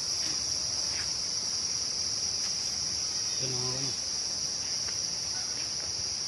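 Steady, high-pitched insect drone, unbroken throughout, with a brief faint human voice about halfway through.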